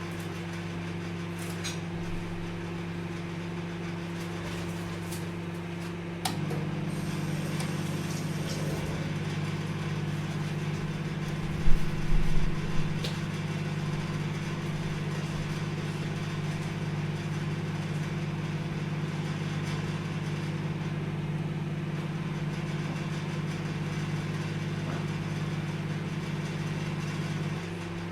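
Microwave oven running with a steady hum. About six seconds in there is a click and the hum becomes louder and fuller, staying so until it drops back near the end; a few low thumps come around twelve seconds.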